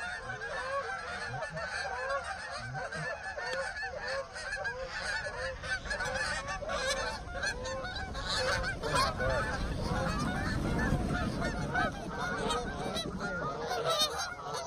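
A flock of Canada geese honking, many overlapping honks with no break, as the birds fly in over the decoys.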